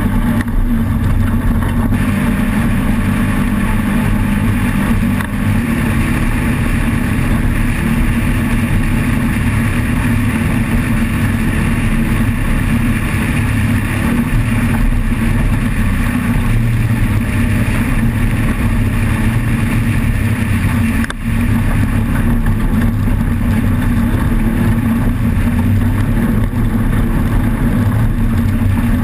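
Off-road race vehicle's engine running hard at speed, a loud, steady drone with the rattle and noise of the ride, dipping briefly about five seconds in and again about twenty-one seconds in.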